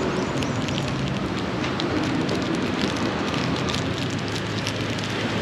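Steady outdoor street noise with a low hum and many faint, scattered crackles.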